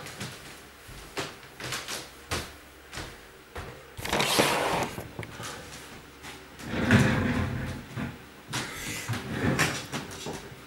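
Household objects being handled: a run of clicks and knocks, with two longer rustling, scraping stretches about four and seven seconds in.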